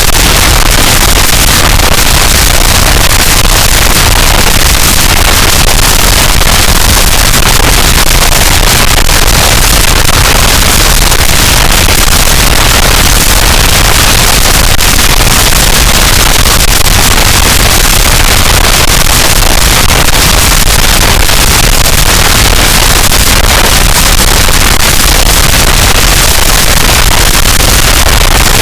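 Harsh noise wall: a loud, unchanging wall of dense distorted static with a heavy low rumble, no rhythm or pitch.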